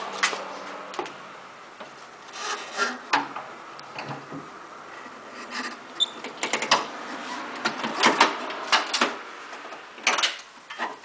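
Irregular clicks, knocks and scraping as the side panel of a Yanmar tractor's engine cover is handled and fitted back into place by hand.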